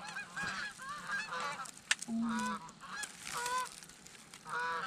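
A large flock of Canada geese honking close by, many calls overlapping, with a single sharp click about two seconds in.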